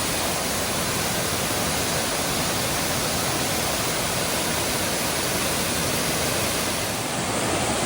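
Waterfall rushing with a steady, even roar of falling water, running high after several days of rain.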